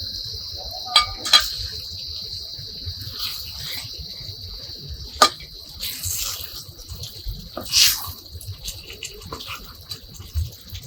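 Stuffed-brinjal curry simmering in a kadai, with a bubbling, liquid sound and a few sharp utensil clicks, the loudest about five seconds in. Crickets chirp steadily in the background.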